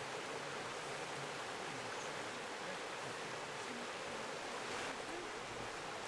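River water running steadily over and around fallen logs, an even rushing noise.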